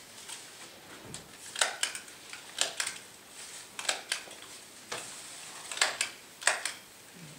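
Handling of a large cloth flag and papers as it is being stitched together: short, sharp rustles and clicks about once a second.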